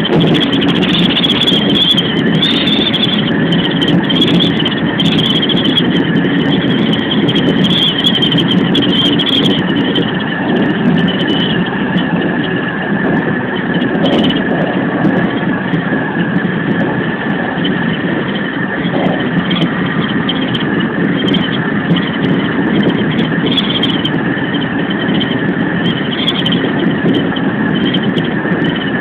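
Keikyu 2100-series electric train running at speed, heard from on board: a steady rumble of wheels and running gear with a high, wavering whine on top. Recorded on a feature phone, which cuts off the highest sounds.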